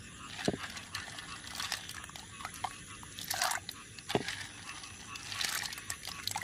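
A hand swishing through a bowl of water full of live snails and scooping them up: short splashes of water, with sharp clicks of shells knocking together and against the bowl.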